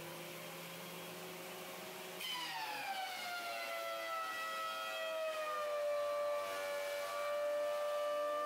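Craftex CX125HC benchtop thickness planer running with a shop vac, then taking a board at a 3/4-turn depth of cut about two seconds in. The motor's whine turns suddenly louder and slides steadily down in pitch over a few seconds as it bogs under the load, then holds at the lower pitch. This is the planer choking out at a depth the owner says is well under its rated cut.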